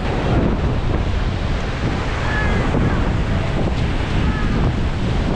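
Wind buffeting the microphone over a loud, steady rushing noise.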